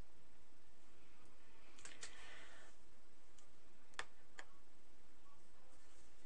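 Steady background hiss with a handful of light clicks: a pair about two seconds in and another pair about four seconds in.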